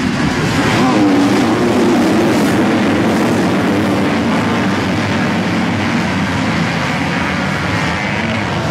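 A full field of 250cc motocross bikes accelerating hard off the start together, their engines revving at full throttle as they race into the first corner. The sound is a dense, steady mass of overlapping engine notes.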